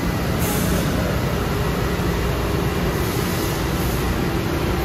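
2003 ANCA PGX CNC tool grinder running under power, with coolant oil spraying inside its enclosure: a steady rushing noise over a low machine hum, with a brief sharper hiss about half a second in.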